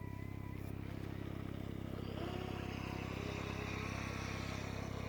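Steady low hum of a running vehicle engine, with a hiss that swells from about two seconds in.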